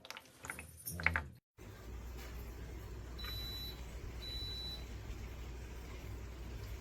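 Electronic humidifier's control panel giving two short high beeps about a second apart, over a steady low hum.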